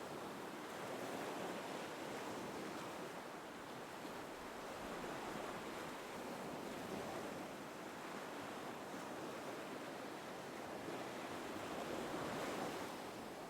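Gentle ocean waves: a soft, steady surf that swells and eases every few seconds.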